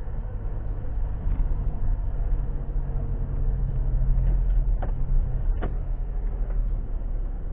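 Car engine and road noise heard from inside the cabin while driving slowly: a steady low hum with engine tones. Two short clicks about five seconds in.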